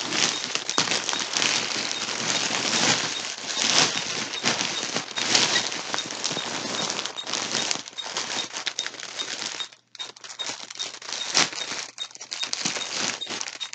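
Plastic packaging crinkling and rustling as it is handled, a dense crackle that stops for a moment about ten seconds in.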